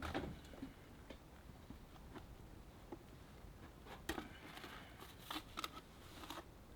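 Faint, scattered scrapes and taps of bricklaying: a trowel working mortar and bedding corner bricks. There is one scrape at the start, another about four seconds in, and a short cluster of scrapes and taps near the end.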